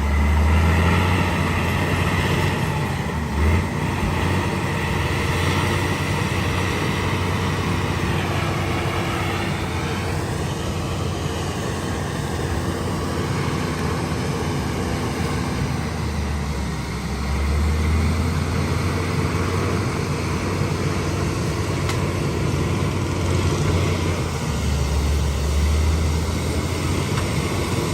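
Heavy diesel earthmoving machinery running under working load, the low engine note swelling and easing several times as the machines work. A single short knock about three and a half seconds in.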